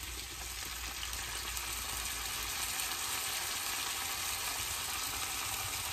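Onion and garlic sizzling steadily in a hot cast-iron skillet as chicken bone broth is poured in from a carton.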